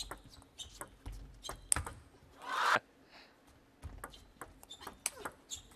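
Table tennis ball clicking sharply against bats and the table, a string of irregular light knocks, with a brief louder rasping burst about two and a half seconds in.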